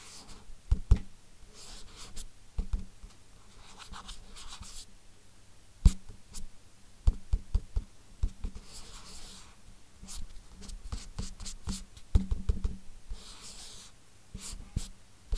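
Writing on paper: repeated scratchy strokes, each about half a second to a second long, mixed with sharp taps and knocks.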